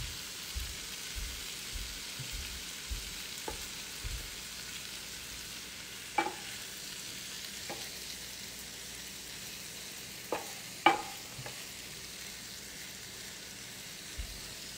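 Shrimp sizzling in a hot frying pan, with the tap and scrape of a spatula against the pan several times as the pieces are turned over, the loudest tap about eleven seconds in.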